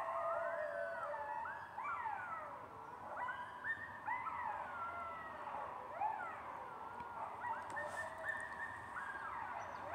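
A group of coyotes howling together, several voices overlapping, each call sliding up and down in pitch.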